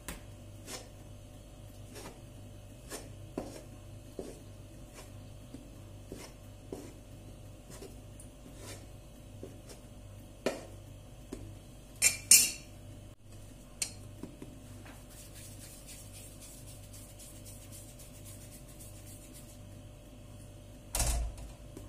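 A metal dough scraper chops soft dough into portions on a wooden board, with a light tap about once a second. A few louder, sharp clacks come near the middle, and there is a heavier thump near the end.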